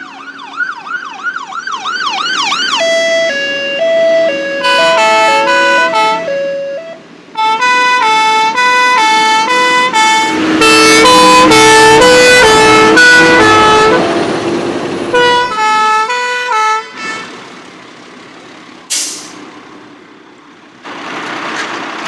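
Fire engine sirens: a fast yelp sweeping up and down for the first few seconds, then two-tone horns stepping back and forth between two pitches, with several sounding together and loudest about halfway through. The tones stop a few seconds before the end, leaving a short hiss.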